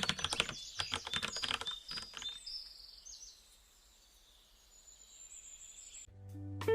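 A quick run of light clicks and taps for about two seconds, fading to near silence; guitar music starts near the end.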